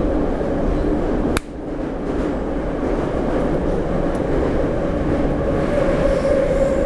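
Inside a metro train car: the steady rumble and hum of the running train. About a second and a half in there is a sharp click, after which the noise drops and then slowly builds again.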